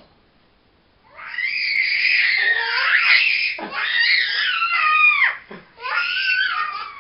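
Toddlers screaming in play: loud, high-pitched shrieks that start about a second in and go on in several long bursts, the pitch of some sliding down at their ends.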